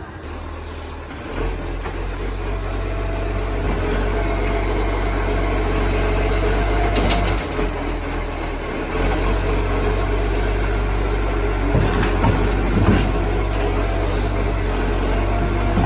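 Acco garbage truck's diesel engine running steadily at about idle, with a massive exhaust leak. A few short knocks come about twelve seconds in.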